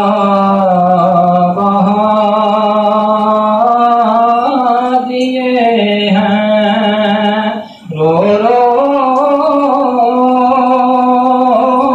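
A man singing an Urdu naat unaccompanied, drawing out long held notes, with a short break for breath about eight seconds in.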